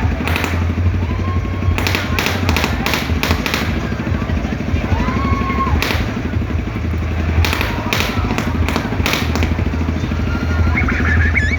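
Kora-kora swinging-ship ride machinery running: a steady low engine rumble with a fast rattle, broken by clusters of sharp clacks. Faint crowd voices and short cries sound over it.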